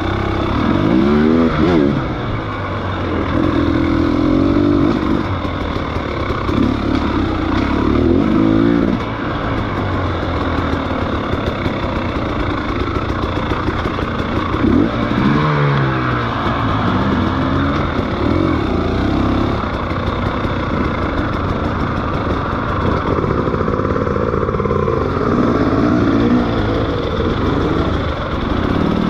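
Motorcycle engine running under way, its pitch rising and falling again and again as it revs up and shifts through the gears.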